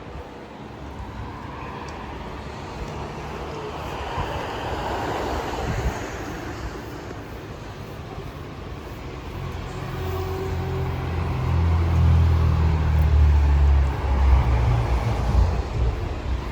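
Street traffic: a vehicle passes around five seconds in, then a motor vehicle's engine rumbles close by, rising from about ten seconds in and loudest a few seconds later.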